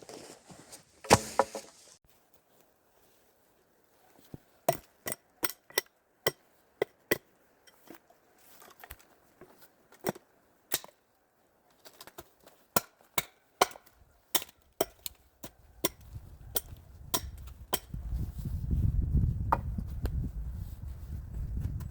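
Wood being chopped: sharp, separate blade strikes, often about two a second, in several runs with short pauses. A low rumble rises in the last few seconds.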